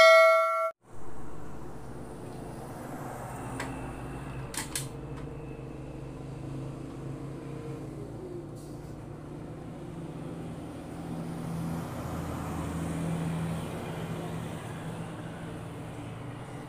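A short ringing chime at the very start, then a steady low mechanical hum like a motor running, with a few sharp metallic clicks around four to five seconds in.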